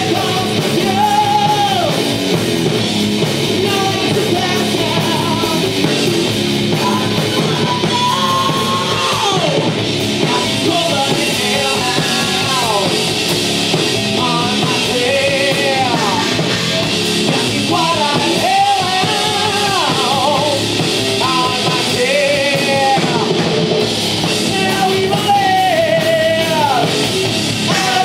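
Live metal band playing: electric guitar, bass guitar and drum kit, with a lead singer's held vocal lines that bend up and down in pitch over the band.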